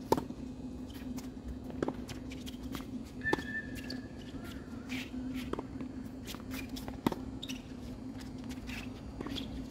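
Tennis ball struck back and forth by rackets in a rally, with sharp pops of racket hits and bounces every couple of seconds, the loudest right at the start. A brief squeak comes a little after three seconds, and a steady low hum runs underneath.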